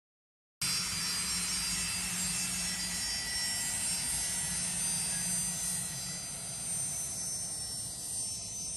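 Steady whine of a jet turbine on an airport ramp: several high-pitched tones held over a rushing noise and a low hum. It cuts in suddenly about half a second in, after silence.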